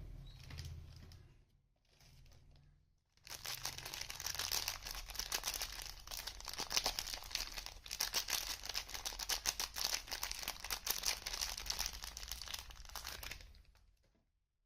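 Soap packaging being unwrapped: soft handling for the first few seconds, then about ten seconds of steady crinkling and tearing of the wrapper.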